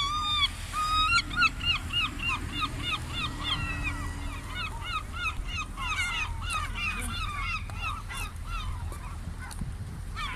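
A flock of gulls calling: short, harsh calls repeated several times a second from many birds at once, thinning out near the end, over a steady low rumble.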